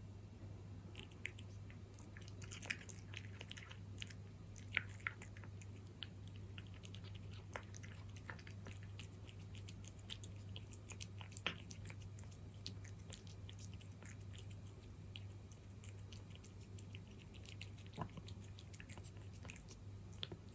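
Cat chewing and eating its food: quiet, irregular wet clicks and smacks of biting and chewing, close up.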